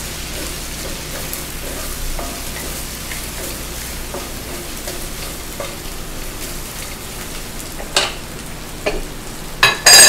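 Sliced mushrooms and chicken sizzling in hot oil in a stainless steel wok while a wooden spatula stirs them. A few sharp knocks near the end, the loudest just before it ends, as the spatula strikes the pan and is set down.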